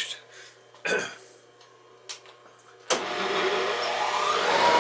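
Monarch 10EE lathe's drive starting up: about three seconds in it comes on with a whirr, and a whine rises in pitch as it spins up, then levels off to a steady high whine.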